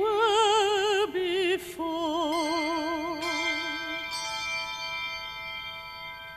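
A solo voice sings the slow, held notes of a hymn line with a wide, even vibrato, ending about four seconds in. Sustained ringing tones from the accompaniment overlap its end and fade slowly.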